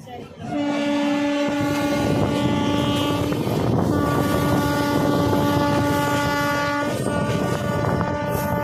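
Train horn sounding in long, steady blasts: it starts about half a second in, breaks off briefly twice and is still sounding at the end, over the running noise of the moving train.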